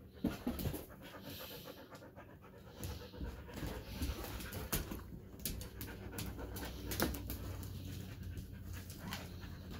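A dog panting, with scattered short, sharp clicks and knocks throughout, a little louder from about three seconds in.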